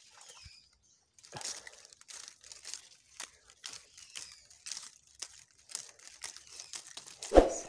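Dry twigs and leaves crackling and rustling in irregular short snaps as hands push through brush, with one much louder, deeper thump near the end.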